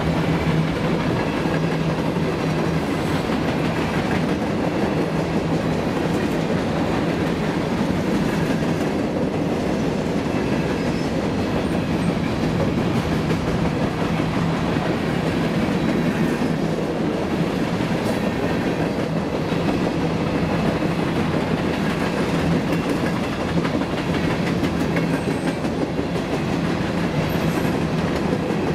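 Covered hopper cars of a freight train rolling past, steel wheels clickety-clacking over the rail joints in a steady run.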